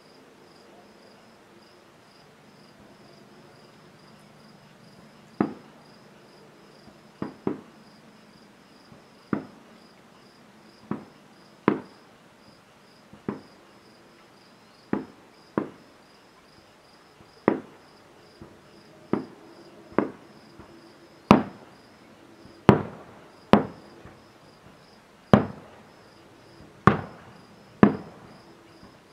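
Aerial firework shells bursting about a mile off, each a sharp bang with a rolling echo tail. About eighteen bangs come every one to two seconds from about five seconds in, louder toward the end, over steady cricket chirping.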